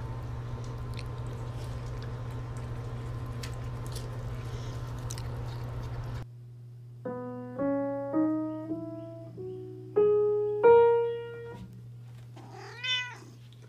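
A steady low hum for about six seconds, then piano notes played one at a time, each dying away, and a single cat meow that rises and falls near the end.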